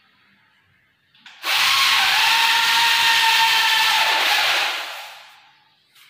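An electric power drill runs for about three seconds. It starts sharply about a second and a half in and fades out gradually near the end.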